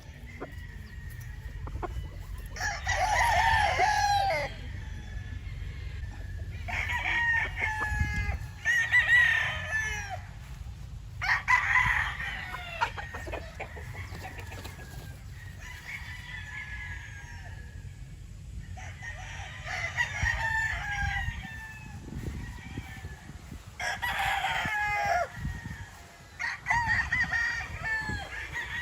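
Roosters crowing in turn, about eight crows of one to two seconds each, some overlapping, over a steady low rumble.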